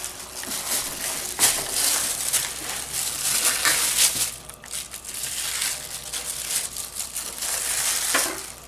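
Plastic wrap and a plastic bag crinkling and rustling as they are pulled off a thawed slab of pizza dough by hand, in uneven crackles with no steady rhythm.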